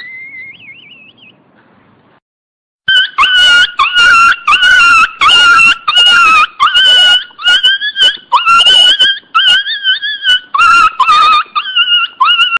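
Very young Pinscher 0 (miniature pinscher) puppy, about ten days old, crying loudly. A wavering whine fades out, then after a short silence about three seconds in it gives a rapid string of high-pitched cries, about two a second.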